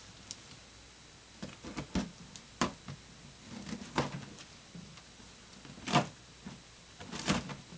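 Cardboard shipping box being opened by hand: irregular sharp clicks, knocks and rips as the packaging is worked open, the loudest about four and six seconds in.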